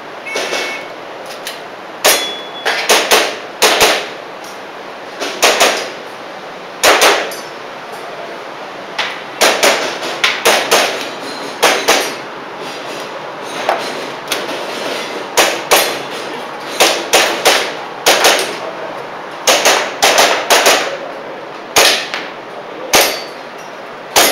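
A short electronic shot-timer beep, then an airsoft gas pistol firing in quick pairs and strings of sharp cracks, with the clang of BBs striking metal targets.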